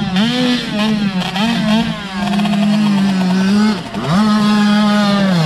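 Small youth motocross bike engine revving hard, its pitch rising and falling again and again as the throttle is worked, with a sharp drop and climb back about four seconds in.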